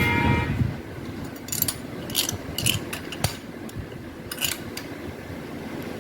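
Spanner working on a motorcycle spark plug: a few short metallic clicks and scrapes, one sharper click in the middle, as the plug is tightened.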